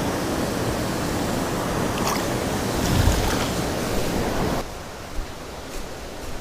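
Steady rush of flowing creek water, which drops abruptly to a much quieter level about two-thirds of the way through.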